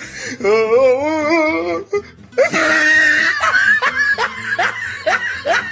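A string of comedy sound-effect clips: a wavering, wobbling voice-like tone, then after a short gap a noisy burst followed by a run of short rising squeals like laughter, with music underneath.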